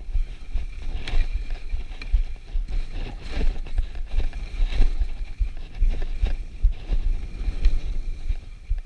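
Skis sliding and scraping over packed, groomed snow, with a few louder swells as the skier turns. Under it, wind buffets the body-mounted camera's microphone with a heavy, uneven rumble.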